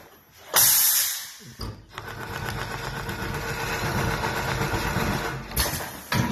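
Hector Styrteknik pneumatic quilting machine at work. A sharp burst of compressed-air hiss comes about half a second in, then a click. The machine then runs steadily for about three and a half seconds, stitching a tufting circle. Another short air hiss comes near the end.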